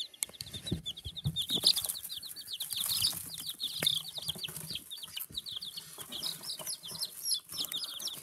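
A brood of baby chicks peeping nonstop: a rapid, overlapping run of short, high, falling peeps. A few dull knocks sound about a second in.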